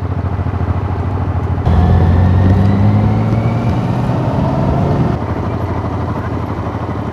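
Motorcycle engine running steadily as it follows riders up a hill climb. From about two seconds in until about five seconds, the sound is louder and closer, as heard from on board the motorcycle, with the engine note rising slowly. The sound level changes abruptly at the picture cuts.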